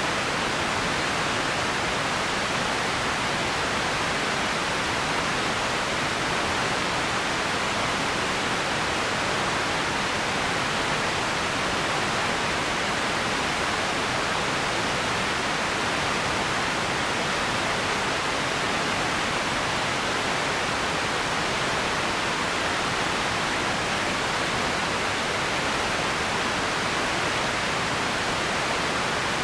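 Empty ambience noise: a steady, unchanging hiss, strongest in the middle range, with no events or changes in it.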